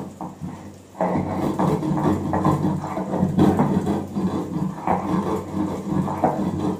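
Stone roller rubbed back and forth over a flat grinding stone (sil and nora), crushing spices coarsely. The gritty scraping strokes start about a second in and repeat about twice a second.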